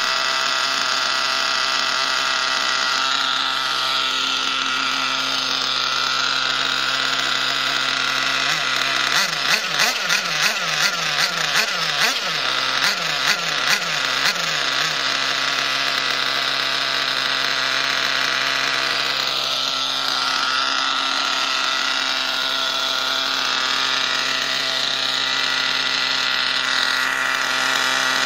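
Small two-stroke nitro glow engine of a 1/8-scale RC truck running steadily at idle, a little rich as it is still being broken in. For several seconds in the middle its note pulses about twice a second.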